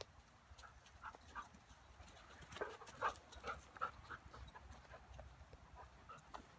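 Dogs whining and yipping faintly in a string of short, high calls while they play, with faint rustling of dry leaves underfoot.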